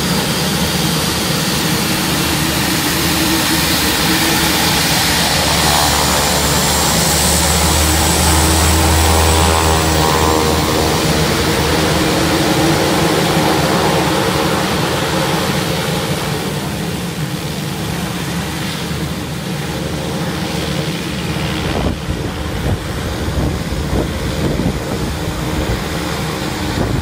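Twin-turboprop aircraft taxiing, its engines and propellers running with a steady drone. The drone is loudest in the first half and drops off after about sixteen seconds as the aircraft moves away.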